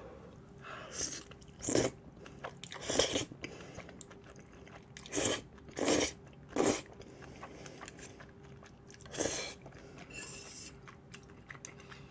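Close-miked eating of thick, chewy udon noodles in cream sauce: chewing and slurping mouth sounds, with about six short loud bursts spread through.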